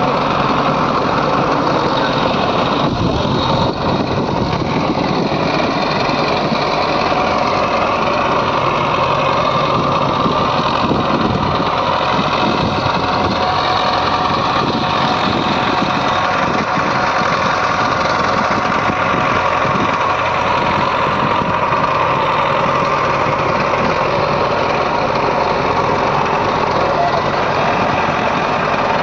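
Diesel engine of heavy machinery running steadily at a constant speed.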